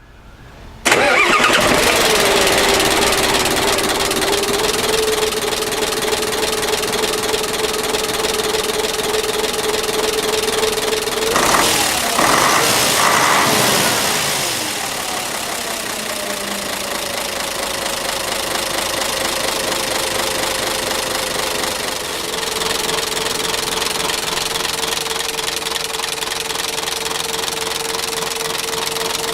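Mitsubishi Fuso 6D22 turbocharged straight-six diesel engine starting about a second in, then idling with a steady whine. About twelve to fourteen seconds in there are a few brief louder surges, after which the whine slides down in pitch and settles.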